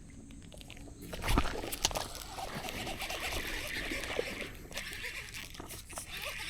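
A snakehead strikes the lure with a sudden loud splash about a second in, followed by continued splashing and thrashing at the water's surface as the hooked fish fights.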